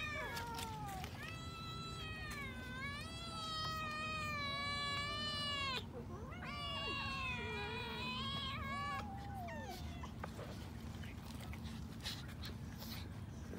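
Hungry cats and kittens meowing for food in long, drawn-out calls, one held for about four seconds, the pitch sliding up and down. The calls stop after about ten seconds, leaving only light clicks.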